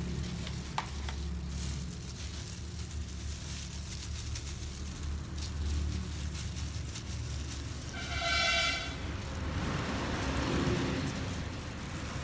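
Wet, squishy brushing and dabbing as a tint brush works thick black dye paste into curly goat hair, over a steady low hum. About eight seconds in, a short high-pitched tone sounds briefly.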